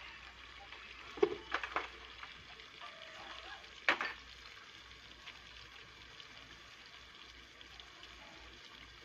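A few sharp clinks and knocks of steel plates and a lid being handled on a stone floor: three close together, then a louder one a couple of seconds later. Under them a faint steady hiss from the pot frying over the wood fire.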